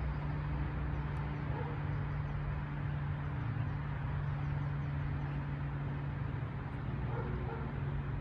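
Steady low mechanical hum over a constant background hiss, with a few faint chirps.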